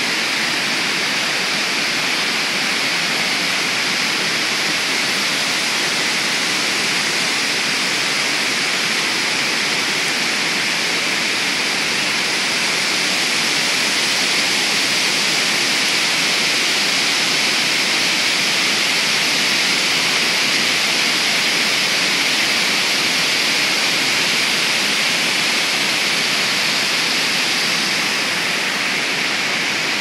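High waterfall crashing into the basin below: a dense, steady rush of falling water with no breaks.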